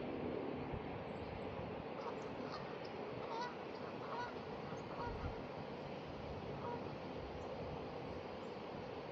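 Geese honking in a string of short calls from about two seconds in, over a steady rush of wind.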